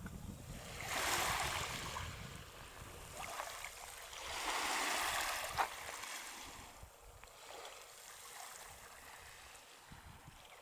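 Small waves washing over a shingle beach of pebbles, with two louder surges, about a second in and about four seconds in, and a sharp click during the second, then a quieter wash.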